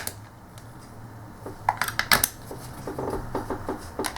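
Plastic clicks and taps from a handheld TV remote control being handled and its buttons pressed: a sharp click at the start, a cluster of louder clicks about two seconds in, then a run of small quick clicks.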